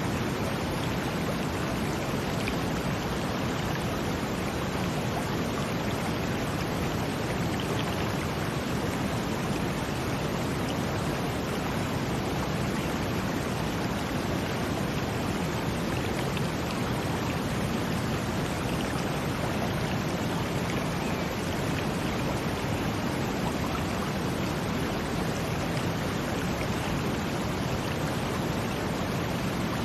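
Brown noise blended with the rush of water: a steady, unbroken hiss heaviest in the low end, with no swells or breaks.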